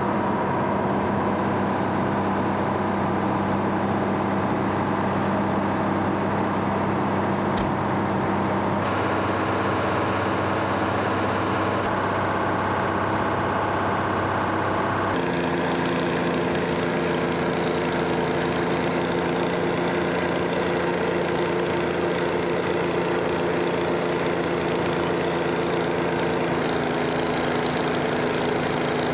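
Twin supercharged Detroit Diesel 6-71 two-stroke diesel engines of a 12-wheeled Chamberlain tractor running steadily. The engine note shifts abruptly about 9, 12 and 15 seconds in, and a single sharp click comes about 7.5 seconds in.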